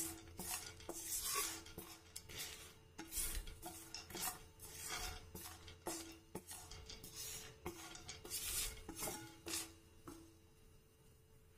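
Wooden spatula stirring and scraping chopped almonds and cashews around a non-stick frying pan as they roast in ghee, in repeated short scraping strokes that die away near the end.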